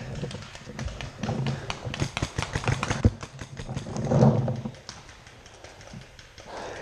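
Paintball gunfire in the woods: a dense run of quick sharp clicks about two seconds in, lasting a second and a half, then a louder muffled rush about four seconds in.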